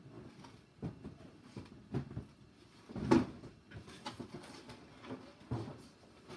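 Boxes being handled and set back upright after toppling over: irregular knocks and taps with light rustling in between, the loudest knock about three seconds in.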